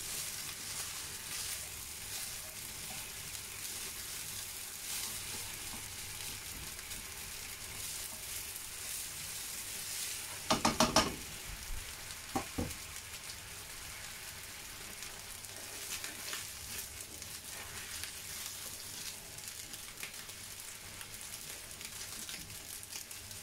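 Rice in soy sauce frying in a pan, a steady sizzle as the liquid cooks off. About halfway through, a quick run of loud knocks, then two more knocks a second or so later.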